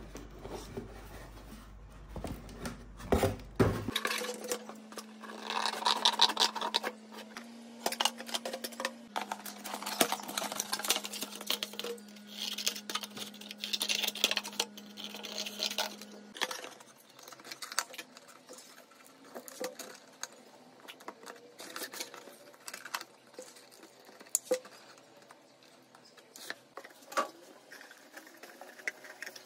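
Handling of a cardboard shoebox: scrapes and clicks of the cardboard, with scissors cutting through it in the first half. Later comes softer rustling and patting as cotton fabric is pressed into the box.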